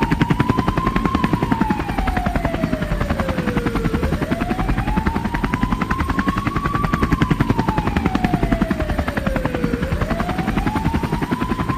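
Helicopter rotor chopping rapidly and steadily, with a wailing tone slowly rising and falling twice over it.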